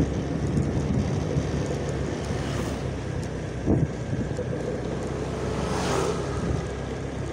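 Motorcycle engine running steadily under way, with wind rushing on the microphone and road noise. A short knock comes about halfway through, and a brief rush swells and fades near the end.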